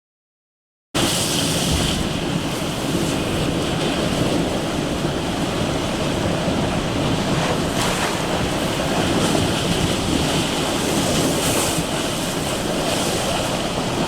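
Steady rushing of fast-flowing floodwater, starting abruptly about a second in after total silence.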